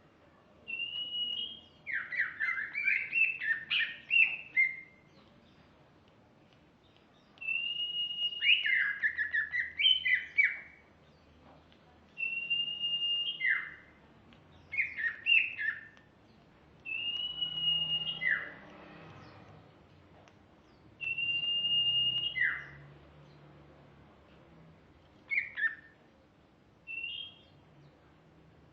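Female green leafbird (cucak ijo) singing in repeated phrases: each opens with a held high whistle and breaks into a run of quick falling chirps. The phrases come every few seconds with short pauses between them, and the last two near the end are brief.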